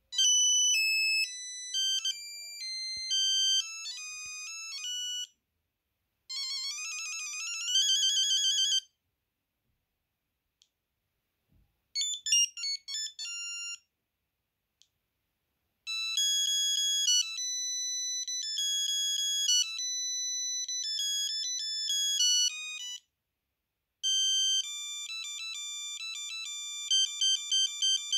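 Sony Ericsson T68i mobile phone's built-in ringtones previewed one after another: several short melodies of high electronic notes, each lasting a few seconds, separated by brief silences as the next tone is selected.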